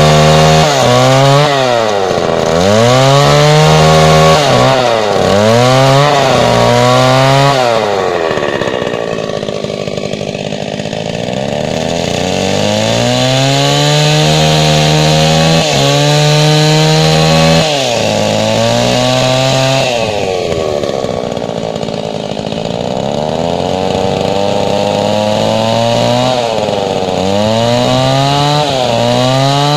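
Chainsaw cutting into a thick block of nghiến hardwood to cut out a round disc. The engine speed sags again and again as the chain bites into the wood and then picks back up, with a quieter stretch about a third of the way in and again about two-thirds in.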